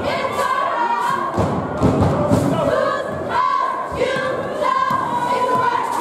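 A basketball bouncing on the gym floor as it is dribbled, with repeated thuds, under group singing with held notes.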